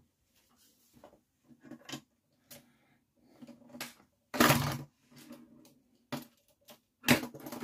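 Tools and small parts being handled at a workbench: scattered light clicks and taps, with two louder clatters of about half a second each, one around four and a half seconds in and one near the end.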